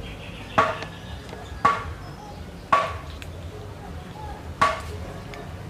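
Four sharp knocks, roughly a second apart with a longer pause before the last, each with a brief ringing tail, over a steady low rumble.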